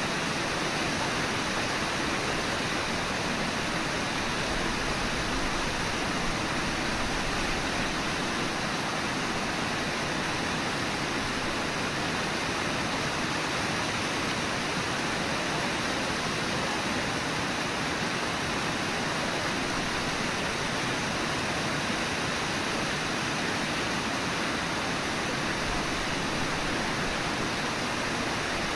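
Steady rushing of whitewater on the Brooks River at Brooks Falls, an even, unbroken wash of water noise with no separate splashes.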